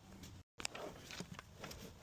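Faint scattered clicks and light knocks of tools and parts being handled, with a brief total dropout about half a second in.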